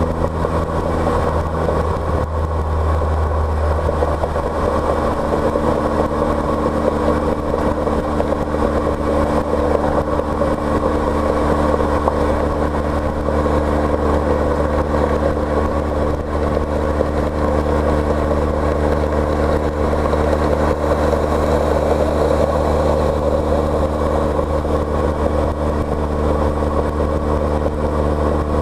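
A car driving at a steady speed: a constant engine hum with continuous road and wind noise. The engine note shifts slightly about four seconds in.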